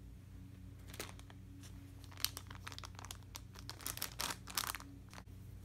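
Thin plastic bag crinkling in irregular bursts as it is handled and pulled off a foam squishy toy, busiest in the second half.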